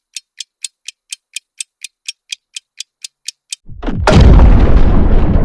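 Countdown clock-tick sound effect, about four sharp ticks a second, cut off about three and a half seconds in by a loud explosion-like boom that keeps rumbling.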